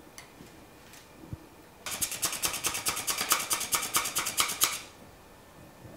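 Stainless steel flour sifter working cake flour through its mesh: a rapid, even rasping rattle of about ten strokes a second, starting about two seconds in and lasting about three seconds. Before it, faint knocks as the flour is tipped into the sifter.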